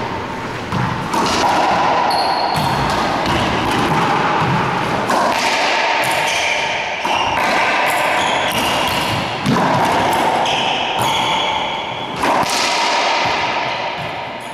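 Racquetball rally in an enclosed court: the hollow rubber ball cracking off racquet strings and the walls, a sharp echoing smack every second or so.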